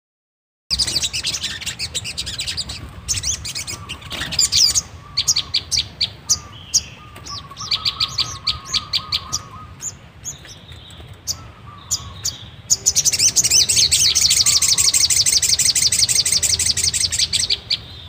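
Sogon (brown-throated sunbird) calling: rapid high chirps and short trills in bursts, then a continuous fast twittering trill for about five seconds near the end.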